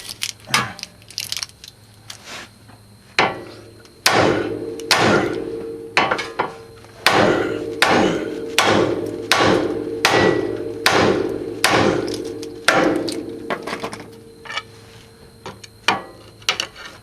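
Hammer blows on a stuck CV axle of a 1997 Honda Civic being knocked loose, about one a second, each strike ringing after it. Lighter taps come first, then a run of heavy blows from about four seconds in, tailing off into lighter taps near the end.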